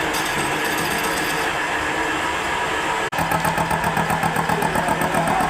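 Lathe running with a steady mechanical hum. About three seconds in, the sound drops out for an instant and comes back with a fast, even pulsing.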